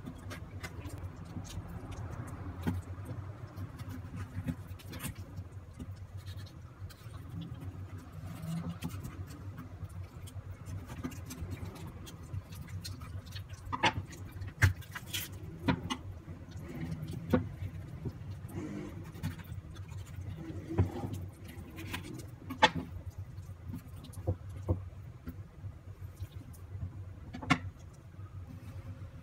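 Scattered clicks and knocks of a knife and raw lamb being handled on a bamboo cutting board, more frequent and louder from about halfway, over a steady low hum.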